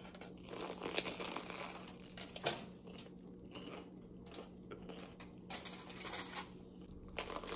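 Aluminium foil wrapper crinkling in the hands, with a bite into a crusty pastry and chewing. The crackles come irregularly.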